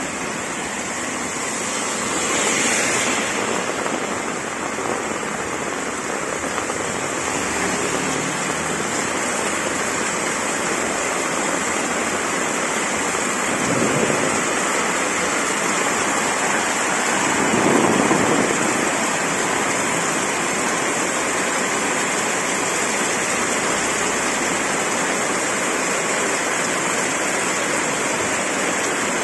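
Heavy tropical rain pouring steadily onto a wet road and surroundings, a dense even hiss. It swells louder briefly three times: a few seconds in, about halfway, and a little after.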